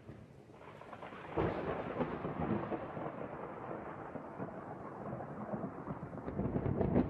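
A deep, noisy rumble that swells suddenly about a second and a half in and builds again near the end.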